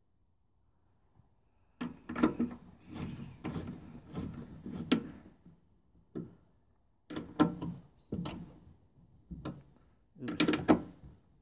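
Metal tools and sockets clattering as someone rummages through a toolbox drawer: several short bursts of clinks and knocks, the sharpest near the end.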